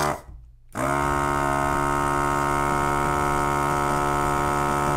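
Built-in vacuum pump of a handheld desoldering gun running steadily as it sucks up melted solder from a soldered seam. It starts about a second in and stops near the end.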